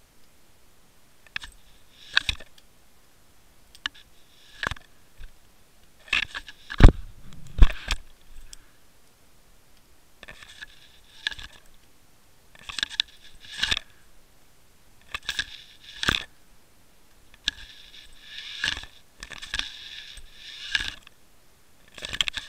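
Water Wolf underwater camera on a fishing line bumping and scraping through kelp: irregular knocks and scratchy rubbing against its housing, with two heavier thumps about seven seconds in.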